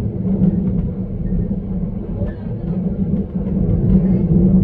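Passenger train running along the track: a steady low rumble and hum, with faint clicks and rattles over it.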